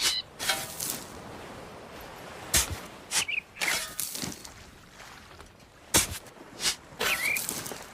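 A shovel digging: the blade is repeatedly driven and scraped into gritty soil, giving a series of short crunching scrapes and thuds at irregular intervals of about half a second to two seconds.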